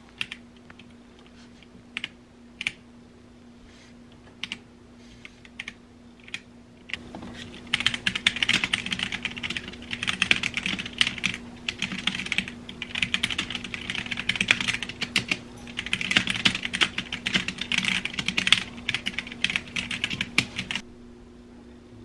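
Typing on a Womier K66 mechanical keyboard with factory-lubed brown Gateron switches and stock keycaps. It starts as a few scattered single keystrokes, turns into fast continuous typing about a third of the way in, and stops abruptly near the end.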